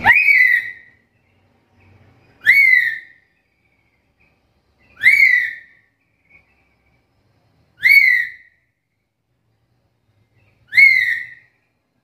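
Black-capped lory (Lorius lory) giving its loud whistled call five times, evenly spaced about two and a half seconds apart. Each call is a short note that sweeps sharply upward and then eases down.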